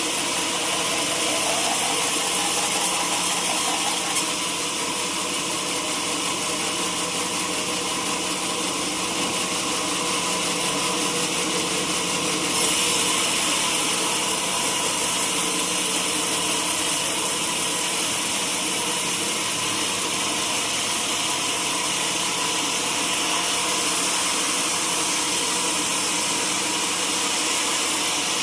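Sawmill saw running steadily with a dense mechanical whine and hiss, cutting durian wood. A single knock comes about four seconds in, and the high hiss grows louder about halfway through.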